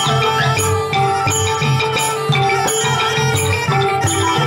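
Khmer pinpeat ensemble playing: roneat xylophones run a quick melody of struck notes over a held wind-instrument line, with low drum beats repeating a few times a second underneath.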